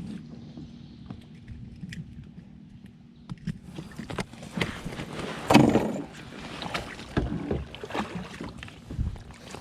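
Irregular knocks, scrapes and rustles of a kayak and its gear being worked among tree branches, with one louder clatter about halfway through.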